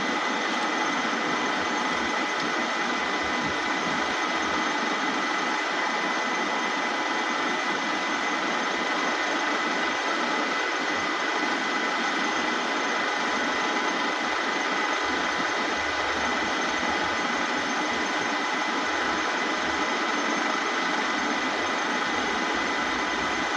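Dufour 221 universal milling machine running steadily, its motor and gearing giving an even mechanical whine over a hiss of machine noise.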